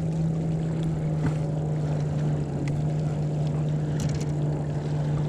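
A boat motor running steadily with an unchanging low hum, with a few faint clicks on top.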